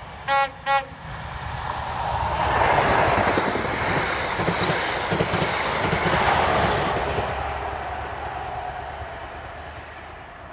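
ScotRail High Speed Train (InterCity 125) giving two short horn blasts, then passing at speed: the noise of the train builds, peaks midway and fades as it runs away.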